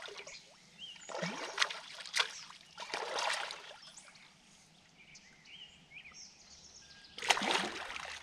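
Hooked channel catfish thrashing at the surface of the water, in three bursts of splashing; the loudest comes near the end as the fish is grabbed by hand at the bank. Faint bird chirps between the splashes.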